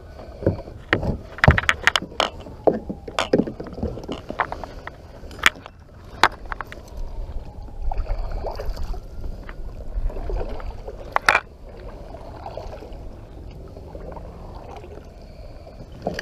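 Irregular knocks and clicks of gear and paddle against a fishing kayak's hull as the angler handles things aboard, over a steady low rumble.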